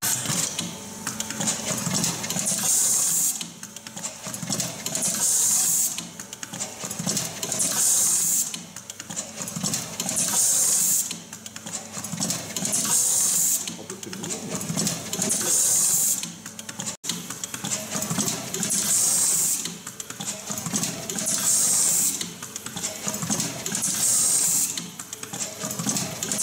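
J.A.M. CPR ZERO ST WP fully automatic wire cut, strip and crimp machine running its cycle: mechanical clatter of the feed and crimp applicators, with a sharp hiss of air from its pneumatic cylinders about every two to three seconds.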